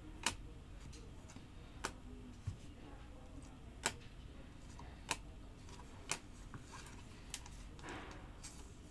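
Stiff Topps Finest chromium trading cards clicking as they are handled one at a time in a stack, about six sharp clicks roughly a second apart.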